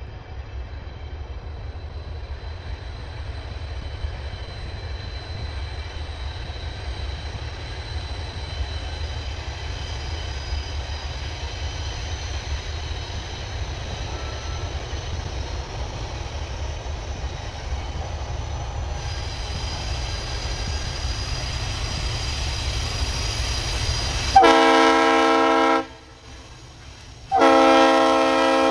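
An approaching diesel freight train makes a steady low rumble. Near the end the locomotive sounds its air horn twice, two long blasts a little over a second apart.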